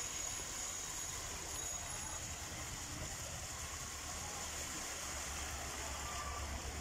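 Steady rushing noise of rain and floodwater on a flooded city street, with a low rumble underneath.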